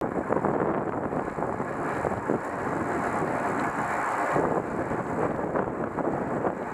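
Wind buffeting a helmet-mounted camera's microphone on a road bike riding at speed, a steady, dense rush.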